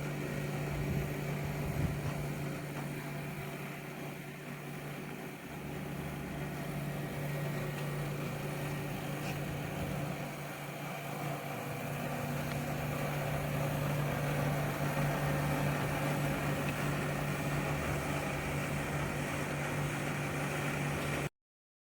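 Air-conditioner outdoor units running: a steady low compressor hum with fan and airflow noise. The sound cuts off suddenly near the end.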